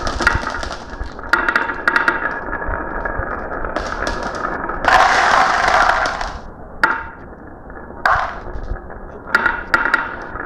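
Marbles rolling and clattering down a marble run track: a continuous rattling roll with sharp clicks as they strike and drop, and louder spells of rolling about a second and a half in, around five seconds in and near the end.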